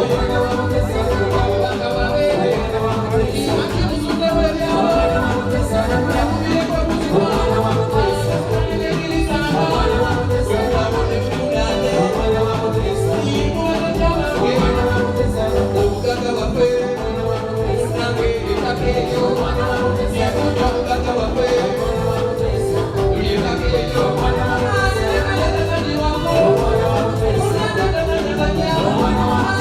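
Live band playing an upbeat dance number with a steady bass beat, with some singing over it.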